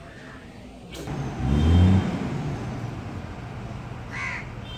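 A truck engine revving briefly, loudest about a second and a half in, then running on with a steady low hum. A crow caws once near the end.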